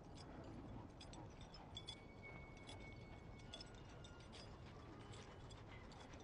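Faint scuffling and scattered clicks of dogs wrestling on packed, gravelly dirt, with a thin high whistle-like tone for about a second and a half near the middle.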